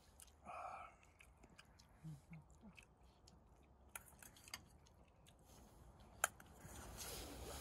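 Faint chewing and mouth sounds of eating braised kimchi and pork belly, with scattered small clicks. One sharp click about six seconds in is the loudest sound.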